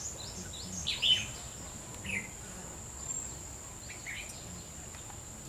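Red-whiskered bulbul giving short chirping song phrases a second or two apart, the loudest about a second in, over a steady high-pitched insect drone.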